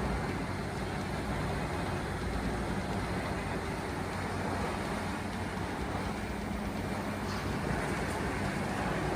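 CBI 6400 CT horizontal grinder running steadily, its big engine droning low under a constant rushing noise of material being ground.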